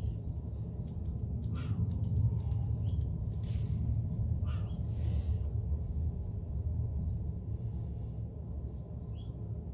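Small sharp metallic clicks and ticks from hands working the ignition points plate and advance mechanism of a Honda CB750, most of them in the first three seconds or so, over a steady low rumble of wind on the microphone.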